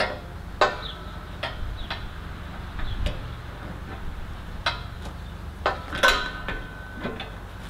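Adjustable wrench working the fittings of stainless-steel braided propane hoses as they are snugged up at the regulator: about eight sharp metal clinks at uneven intervals, a few ringing briefly, the loudest about six seconds in.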